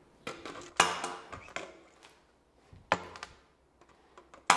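Metal handheld tactical flashlights dropped tail-cap first through an upright clear tube onto a concrete floor, landing with sharp clacks and clattering. There are several separate hits, the loudest just under a second in and another right at the end.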